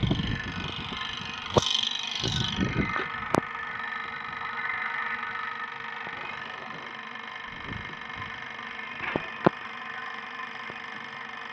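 Small electric water pump motor running steadily with a hum and whine, while the pump is being primed and the water has not yet come up. A few sharp clicks and knocks come from the pipe fittings being handled, with two close together near the end.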